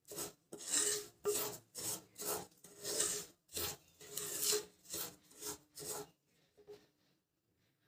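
Wooden spatula scraping and stirring semolina roasting in ghee across a nonstick kadhai, in rhythmic strokes about two a second. The strokes fade out about six seconds in.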